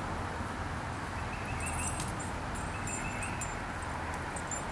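Steady outdoor background noise with a low hum, and faint high wavering chirps twice in the middle.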